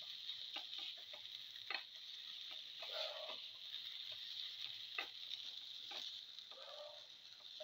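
Winter melon and tomato pieces sizzling gently in a pan while a spatula stirs them, with scattered taps and a couple of longer scrapes of the spatula against the pan.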